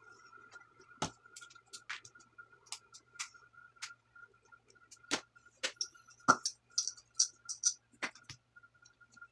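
Small plastic clicks and taps as a lancet is fitted into a lancing device and the device is handled, with plastic pieces knocking on a glass table top; a run of quick scratchy rubs comes a little after the middle.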